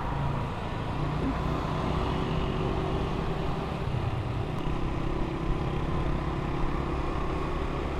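Motorcycle engine running at a steady cruise, heard from the rider's seat with wind and road noise over the microphone; its note steps up slightly about halfway through.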